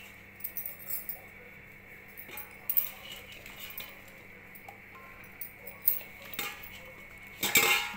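Chopped raw mango pieces clattering as they are scooped by hand from a stainless steel bowl into a glass tumbler, with scattered clinks of glass against steel. The loudest clatter comes near the end.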